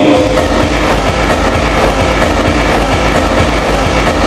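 Cumbia played very loud over a sonido's sound system, distorted and smeared on the recording, with a steady beat of low thumps about three to four a second.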